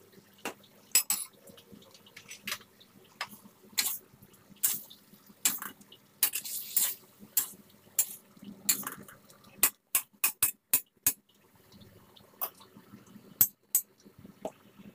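Metal spatula scraping and clanking against a stainless steel wok during stir-frying, in irregular sharp strokes, with a quick run of taps a little past halfway.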